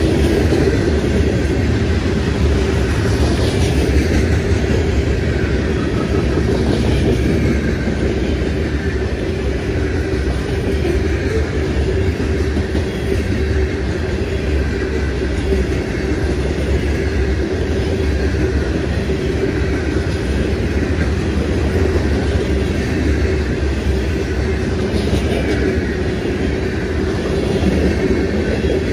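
Covered hopper cars of a CSX freight train rolling past: the steady noise of steel wheels running on the rails, with a steady hum underneath.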